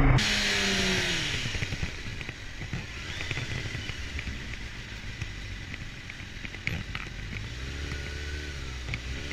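Suzuki sport motorcycle's engine dropping in pitch as the rider backs off and slows, with wind noise fading away, then running quietly at low revs. Near the end another motorcycle engine note briefly rises and falls.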